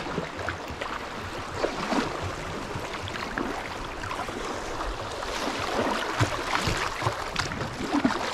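Rushing water of a shallow river rapid around a kayak drifting through it, with irregular splashes and slaps of the chop against the hull.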